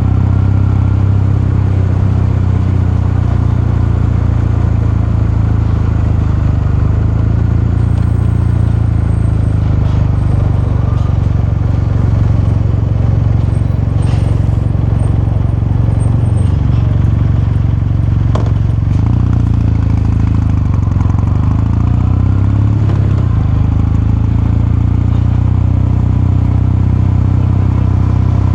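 Kawasaki Meguro K3's air-cooled parallel-twin engine and exhaust running steadily under way, with the engine note dipping briefly three times past the middle.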